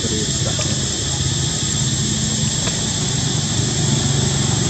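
Steady low engine-like drone with a constant thin high whine above it. A couple of faint short squeaks come about half a second and two and a half seconds in.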